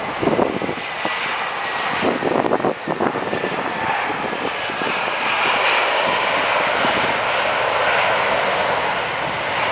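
Jet engines of a British Airways Airbus A321-231 (IAE V2500 turbofans) on the landing rollout: a steady jet roar with a faint whine that grows louder about five seconds in. Wind buffets the microphone during the first few seconds.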